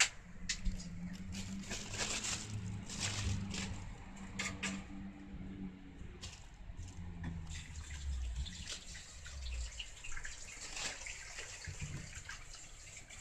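Thin plastic bag crinkling and rustling in irregular crackles as a kitten paws and noses at it.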